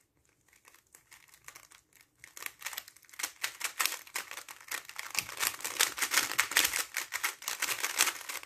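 GAN XS 3x3 speedcube being scrambled by hand: its plastic layers click and clack as they are turned. The turns are sparse at first, become a fast, dense run after about two seconds, and stop abruptly near the end.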